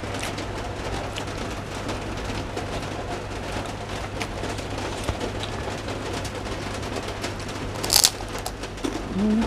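Close-up eating sounds, chewing with small wet clicks and crackles, over a steady hiss of falling rain. One sharper crack about eight seconds in.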